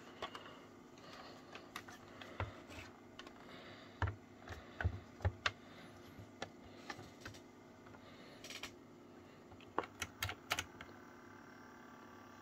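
Irregular clicks and knocks of hard plastic as a Unitra ZRK MK 121 cassette recorder is handled and its cassette door is opened. A faint steady whine sets in near the end as the recorder starts running.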